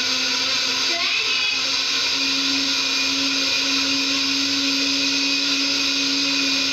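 Electric kitchen blender running steadily at full speed, grinding fresh turmeric and bird's eye chillies with water into a paste, with a constant motor hum.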